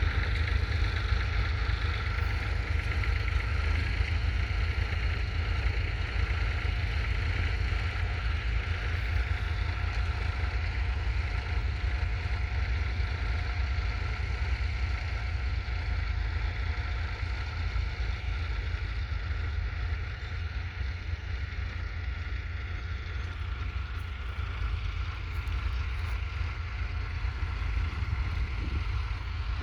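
1970 Ford 3000's 2.9-litre three-cylinder diesel engine running steadily as the tractor pulls a two-furrow mounted plough, with wind buffeting the microphone.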